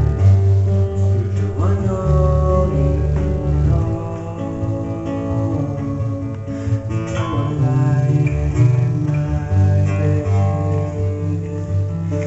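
Acoustic guitar being played: deep bass notes held and changing every second or so, under higher picked notes.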